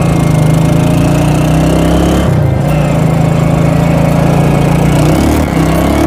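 Motorcycle engine running steadily, its note breaking briefly twice.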